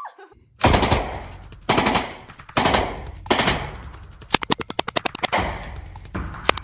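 Fully automatic gunfire in short bursts, with the shots ringing after each burst. There are four quick bursts, then a longer one about four seconds in, and another near the end.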